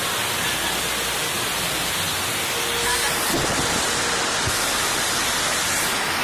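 River rapids: fast water rushing steadily over and around rocks.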